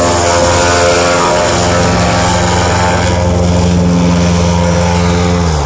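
Airboat's engine and air propeller running hard as it drives over snow, a loud, steady drone whose pitch falls near the end.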